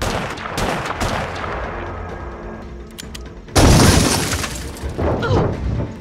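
Movie soundtrack of a struggle: a tense music score with sharp impacts, and one loud, sudden crash about three and a half seconds in that dies away over about a second.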